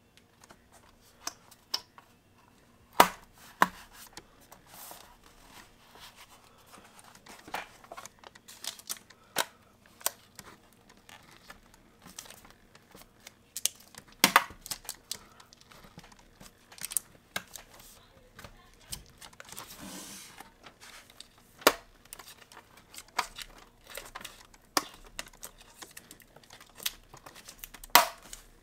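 Irregular sharp clicks and taps of a MacBook Pro's aluminium bottom case being handled and fitted back onto the laptop, with a few louder knocks and a short rustle about two-thirds of the way through.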